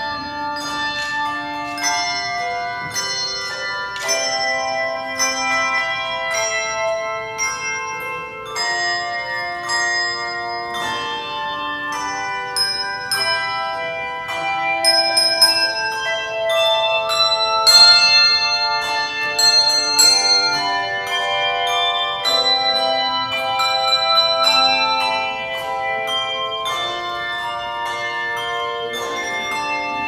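Handbell choir playing a piece: many pitched bell notes struck in overlapping chords and melody, each note ringing on after it is struck.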